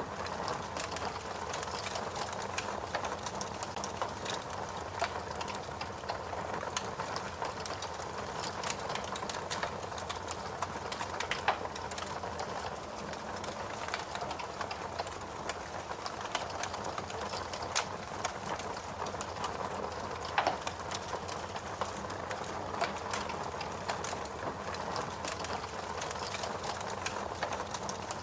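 Wood fire crackling steadily, with dense small snaps and a couple of louder pops.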